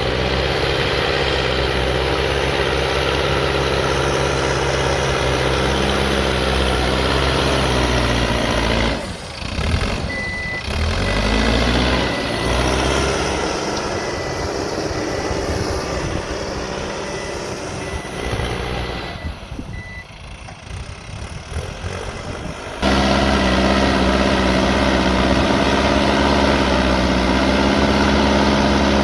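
Diesel engine of a Mahindra backhoe loader running steadily. In the middle stretch the engine is quieter and a high reversing alarm tone sounds for several seconds. The loud engine sound cuts back in abruptly near the end.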